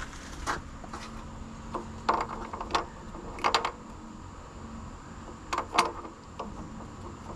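Irregular clicks and knocks of hydraulic relief valve parts being handled, over a faint steady hum.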